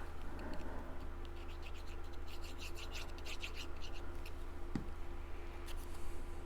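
A pen scratching over cardstock in quick short strokes, lightly colouring in a small paper piece, for a few seconds starting about a second in; a couple of light clicks follow near the end.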